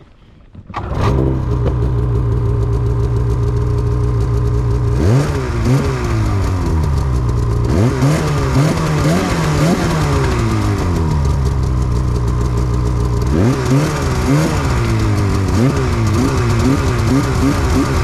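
Snowmobile engine starting about a second in and idling, then revved in repeated short blips that rise and fall in pitch, with steady idle between.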